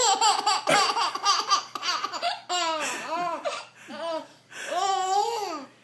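A baby laughing: a quick run of laughs at first, then several separate high laughs that rise and fall in pitch, the longest one near the end.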